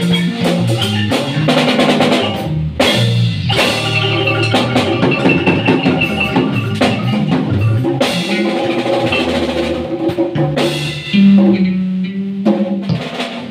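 Live marimba band playing: marimba over a drum kit and congas, with dense drum strikes and a moving line of low notes. Near the end a low note is held, then the playing breaks off.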